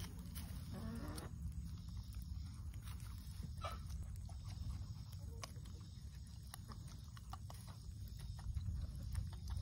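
Domestic turkeys pecking at kitchen scraps, with scattered soft pecking clicks and one short call about a second in, over a steady low rumble.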